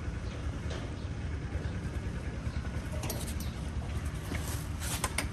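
Steady low rumble of outdoor background noise, with a few light clicks and taps about three seconds in and again near the end.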